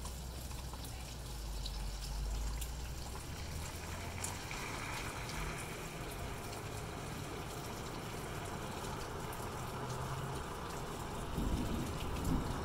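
Steady rain falling, with scattered drop hits. About halfway through, a car goes by on the wet road, its tyres hissing on the water, then fades away. A low rumble comes near the end.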